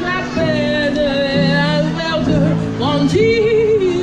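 A woman singing into a microphone over upright piano accompaniment, her voice sliding through a melodic run and ending on a long held note with vibrato near the end.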